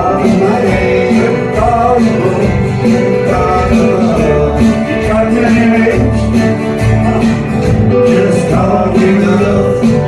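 Live band playing a song on strummed acoustic guitars with electric guitar.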